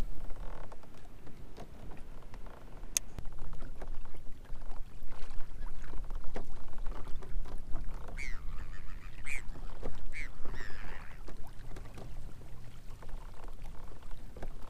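A flock of gulls calling over the water, with a run of harsh, bending squawks about eight to eleven seconds in. A steady low wind rumble on the microphone runs underneath.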